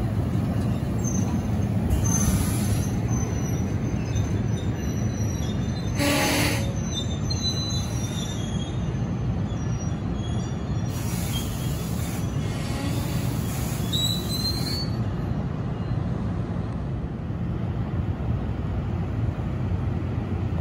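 NJ Transit MultiLevel coaches rolling past on the rails: a steady low rumble with thin, high wheel squeals that come and go and fade out after about fifteen seconds. A short, sharp burst of noise comes about six seconds in.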